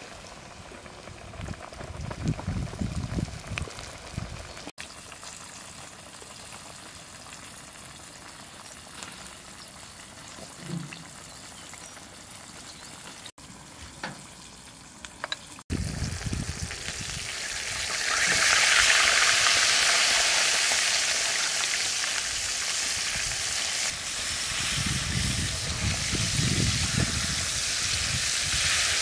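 Flour-coated red fish deep-frying in hot oil in a wok, an even crackling sizzle. It is fainter at first and turns loud and dense a little past halfway.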